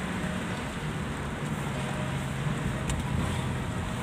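Steady engine hum and tyre and road noise heard inside a moving car's cabin, driving in light drizzle.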